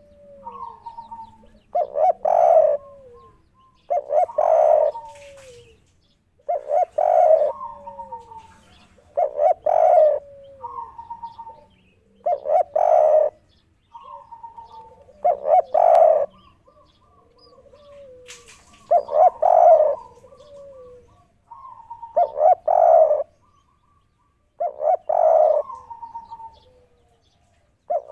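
Spotted dove cooing its three-note 'kuk 3' song, the phrase repeated about every two and a half seconds, each followed by a softer falling note.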